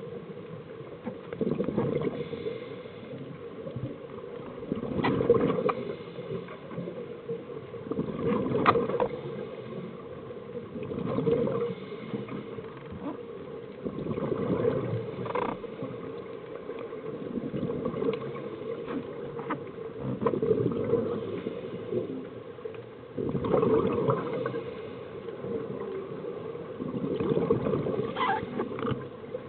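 Scuba divers breathing underwater through regulators: bursts of exhaled bubbles rumble and gurgle past about every three seconds, over a steady low drone.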